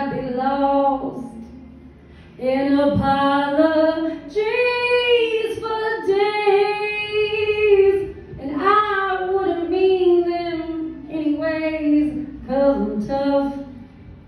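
A woman singing a cappella into a microphone, a solo unaccompanied voice in long held phrases with short breaks between them.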